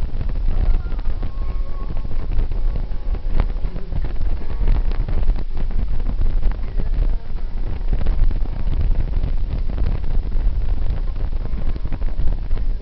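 Wind buffeting the microphone over the low rumble of a vehicle moving at highway speed.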